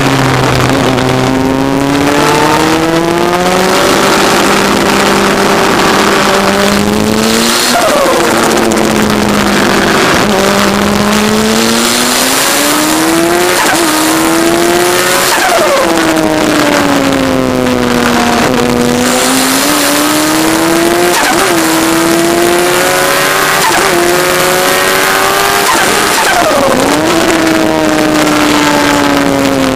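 Turbocharged Kawasaki ZX-10R motorcycle engine in an MK Indy kit car, heard on board while driven hard: the engine note climbs and falls again and again as it accelerates and slows, with sudden breaks in pitch, over a steady hiss.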